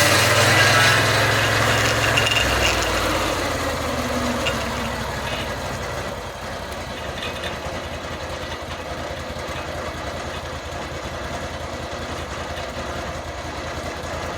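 Band sawmill's engine slowing from cutting speed to idle about two and a half seconds in, as the sawing noise fades, then idling steadily.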